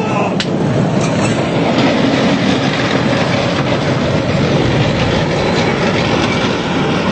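Tank moving close by: its engine running and its tracks clattering in a steady, loud rumble, with one sharp click just after the start.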